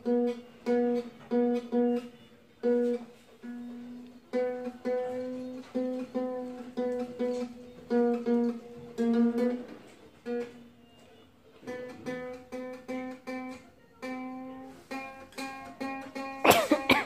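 Ukulele being tuned: one string at a time plucked over and over, each note ringing briefly while the tuning peg is turned, the pitch creeping up about nine seconds in. Near the end, a loud strum across the strings.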